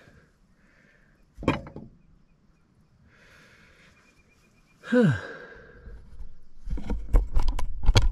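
A man's two short grunting sighs of effort, each falling in pitch, about a second and a half and five seconds in. From about seven seconds on there is low rumbling handling noise with several sharp clicks and knocks.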